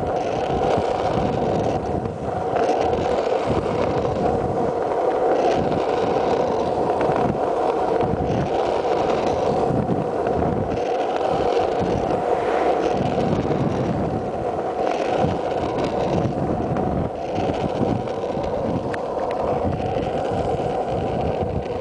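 Freebord wheels rolling fast on rough asphalt, a steady roar that lasts throughout, with wind buffeting the microphone.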